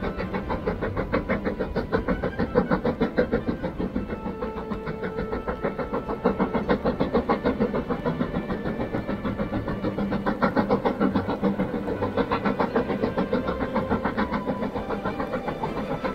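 Steam locomotive chugging, its exhaust beating in a fast, even rhythm of several chuffs a second.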